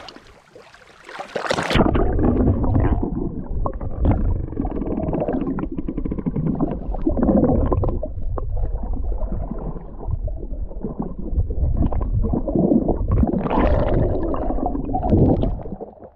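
Camera microphone dipped under clear lake water: a splash of noise as it goes in, then about two seconds in everything turns muffled, with the high end gone and a low, gurgling rumble of water against the microphone, until it comes back out near the end.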